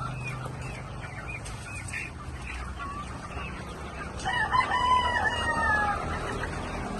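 Chickens clucking in short calls, then a rooster crows once, a long call starting about four seconds in.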